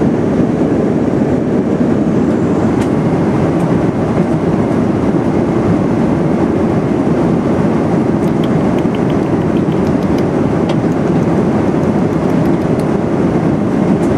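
Airliner cabin noise in flight: the steady, loud rush of engines and airflow, even throughout. A few faint light ticks sound over it in the second half.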